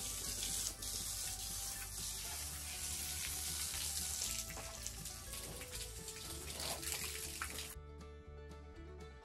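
Water spraying from a garden hose onto the concrete floor of a pig pen, a steady hiss that cuts off about eight seconds in. Background music plays underneath.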